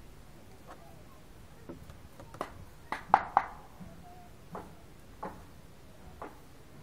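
An animal coughing: a series of short, sharp coughs, about nine of them. The loudest are a quick run of three a little past the middle.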